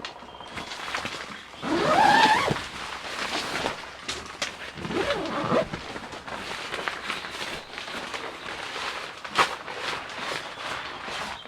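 Steady rain noise with scattered ticks like drops. About two seconds in there is a loud short call that rises in pitch, and a weaker call comes about five seconds in.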